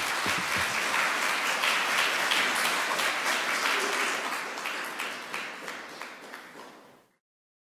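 Audience applauding, an even spatter of many hands clapping. It dies away toward the end and then cuts off abruptly into silence.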